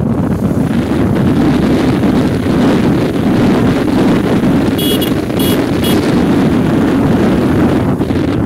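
Steady loud rush of wind buffeting the microphone, as when travelling in the open. About five seconds in come three short high-pitched tones in quick succession.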